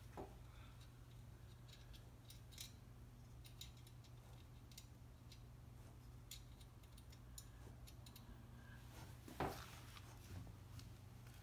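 Near silence with faint, scattered metallic clicks from a valve spring compressor and valve parts being worked on an air-cooled cylinder head, over a low steady hum. A slightly louder knock comes about nine and a half seconds in.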